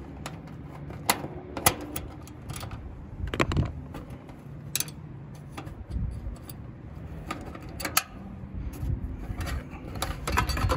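Irregular clicks and rattles of wire spade terminals being pulled off a dual run capacitor and of the metal capacitor can being handled in an air-conditioner condenser's control panel.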